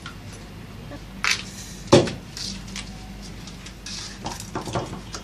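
Hard plastic Play-Doh toy tools being handled and knocked on a tabletop: a sharp knock, then a louder thump about two seconds in, then a run of small clicks near the end.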